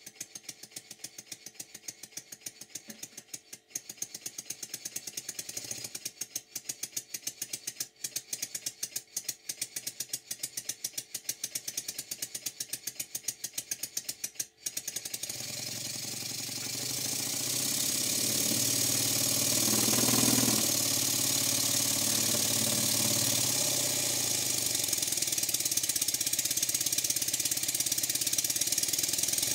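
Stuart No. 4 model steam engine running on compressed air. For the first half it runs slowly with distinct, evenly spaced exhaust beats. About halfway through it speeds up and the beats blur into a louder, continuous rushing hiss. The valve timing is set for admission just before top and bottom dead centre, and the engine is running well apart from a little side play on the crankshaft.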